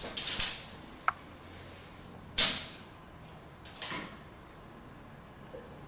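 Steel tape measure being pulled out and handled while measuring across a garage door opening: a few short, sudden noisy bursts, the loudest about two and a half seconds in, with a brief tone just after the first second.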